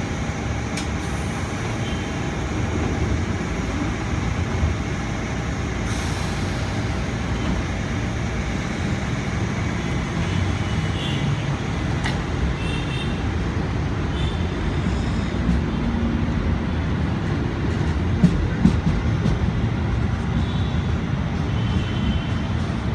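Electric commuter train moving along the station platform: a steady low rumble of wheels on rails and running gear, with two sharp clacks late on.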